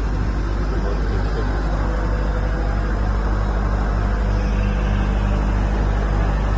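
Crawler pile driving rig's Cummins diesel engine running steadily, with an even low throb and no hammer blows.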